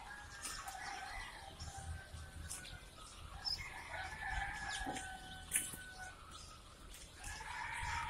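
Chickens calling, several drawn-out calls over one another, with scattered light clicks and rustles as handfuls of day-old chicks are moved from a plastic crate into plastic baskets.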